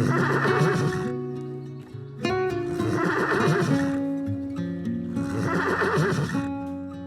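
An animal call repeated three times, about every three seconds, over background music of held notes.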